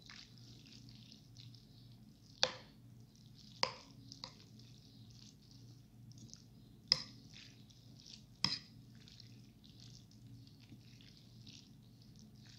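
Close-up eating of instant noodles: wet chewing and slurping sounds, with a fork clinking sharply against the bowl four times, over a low steady hum.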